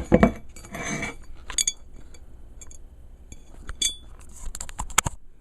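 Scattered light clinks and knocks of hard objects being handled on a workbench, with a few short metallic pings and a sharper knock near the end.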